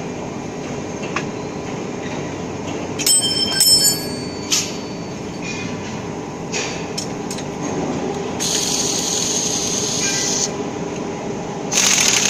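A handheld power tool runs in two bursts of about two seconds each, over a steady factory machinery hum. A short, loud metallic ringing comes about three seconds in.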